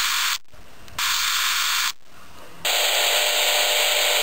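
Loud rushing radio hash from the superregenerative receiver of a toy walkie-talkie converted from 27 MHz to 28 MHz AM. The hiss cuts out twice for about half a second each, then comes back.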